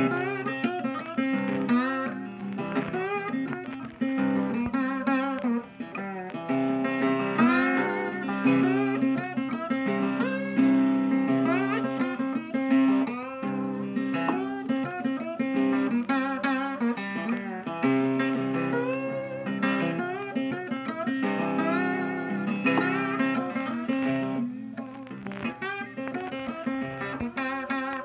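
Background music: guitar playing a melody with bending notes over steady low notes.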